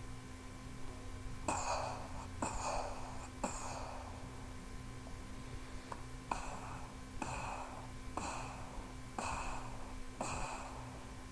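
War-machine sound effect made with the mouth: eight short, breathy blasts, each starting with a sharp click, about one a second. Three come first, then after a pause of about two seconds five more.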